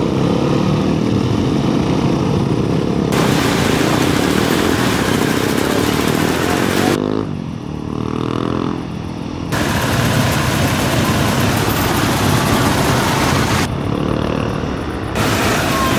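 Engines of a group of off-road motorcycles running and revving as they ride at night, with a rising rev about halfway through. The sound switches abruptly several times.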